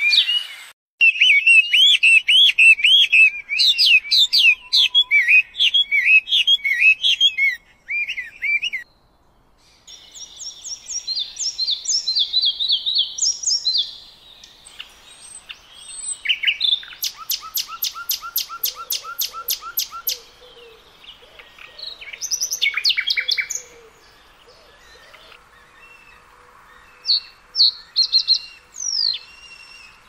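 Songbirds singing, one pattern after another with abrupt changes between them: rapid repeated chirps for the first several seconds, then varied phrases, a fast trill of repeated notes in the middle, and scattered calls near the end.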